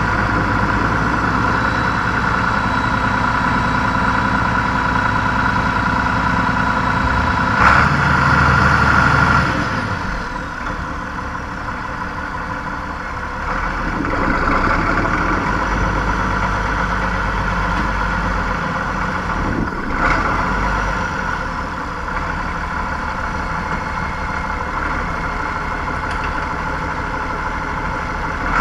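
Tractor engine running, its speed going up and down a few times, with two brief clunks, about 8 and 20 seconds in.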